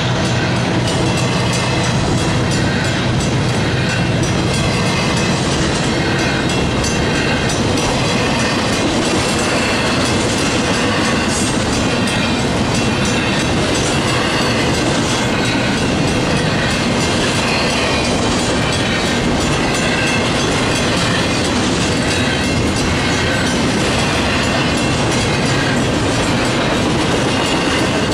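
Freight train rolling past, its car wheels clattering steadily over the rail joints.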